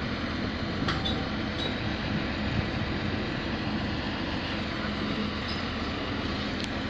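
Engine of a drop-hammer pile-driving rig running steadily in a low rumble, with a couple of faint clicks.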